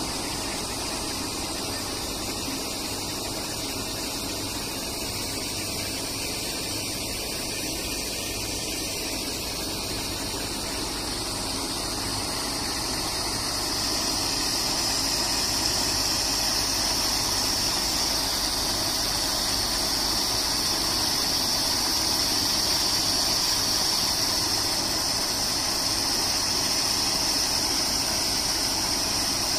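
Four-paddle-wheel pond aerators running: the steady hum of their 1 HP single-phase electric motors and gearboxes under the churning splash of the paddles beating the water. The sound grows louder about halfway through.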